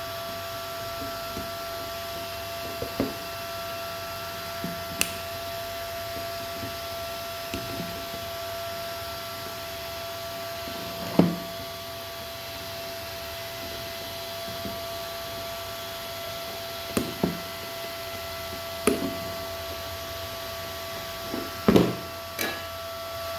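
Scattered small knocks and clicks, as of tools and parts being handled on a repair bench, over a steady electrical hum with several thin whining tones. The loudest knock comes about halfway through, and a quick cluster of clicks comes near the end.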